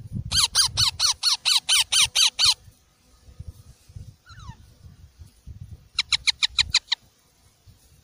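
Green parakeet chicks calling: a fast run of about ten short squawks, each falling in pitch, then one faint call, then a second run of about eight shorter squawks about six seconds in.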